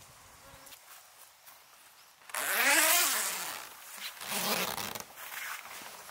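A zipper pulled in two strokes, a loud first pull of about a second and a shorter, softer second one, its rasp rising and falling in pitch.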